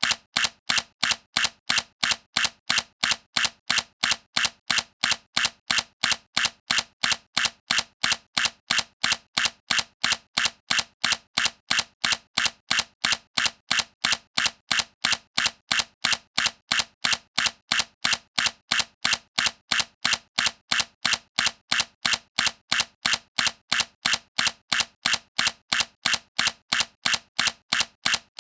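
Sony A7C mirrorless camera's shutter firing over and over at an even pace, about three sharp clicks a second.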